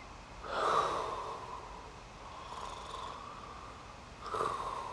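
A man breathing heavily through the nose and mouth in slow, noisy breaths: three breaths about two seconds apart, the middle one weaker.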